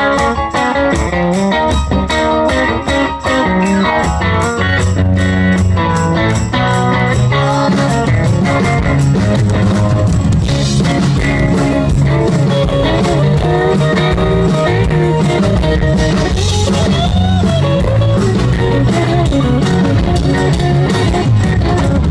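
Live rock band playing an instrumental passage, electric guitar in front over bass and a steady beat, with the guitar notes bending in the second half.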